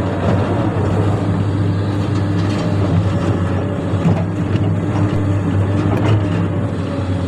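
Excavator's diesel engine running steadily, with a few brief knocks scattered through.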